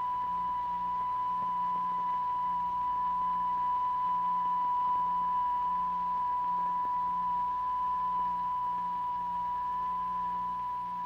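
A steady, high, pure electronic tone from a tone generator, held unchanged at one pitch: the sound driving the vibration patterns in a cymatics experiment.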